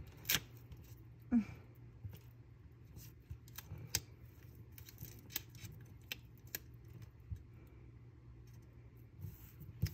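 Scattered light ticks and paper rustles as fingers with long nails press and smooth a paper sticker onto a planner page. A short low hum of voice about a second and a half in.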